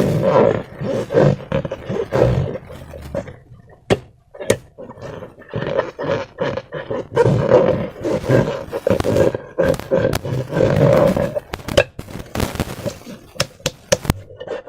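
Slime and rubber balloons being handled and squeezed: repeated squishy, rubbery bursts, with a few sharp clicks about four seconds in and again near the end.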